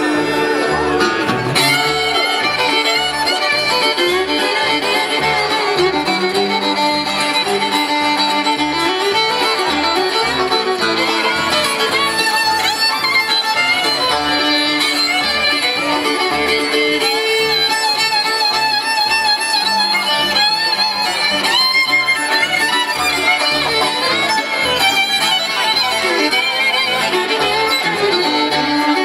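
Bluegrass band playing an instrumental break, a fiddle carrying the lead over banjo, mandolin, acoustic guitar and upright bass keeping a steady bass pulse.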